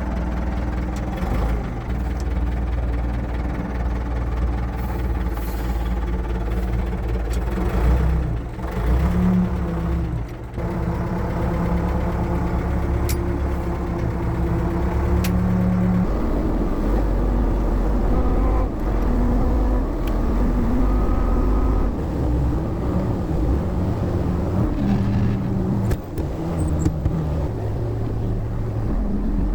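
Case 680G backhoe's diesel engine running steadily as the machine is driven, its pitch shifting about halfway through.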